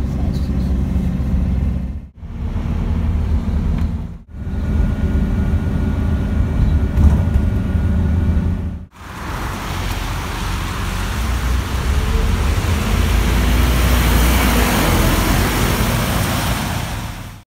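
Double-decker bus engine and running noise heard from the upper deck while the bus moves, a steady low rumble cut into several short clips. About nine seconds in it changes to roadside traffic noise: a double-decker bus driving along a wet road with a steady tyre hiss.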